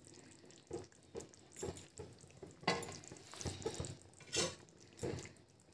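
Pan of fish curry simmering on the stove, with a scattering of light, irregular clicks and knocks of kitchen utensils against the pan.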